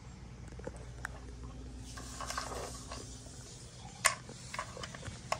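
Cat pawing and nosing the plastic lids of a wooden treat-puzzle board: light clicks and knocks, a short scraping rustle about two seconds in, and a sharp clack about four seconds in, with another just before the end.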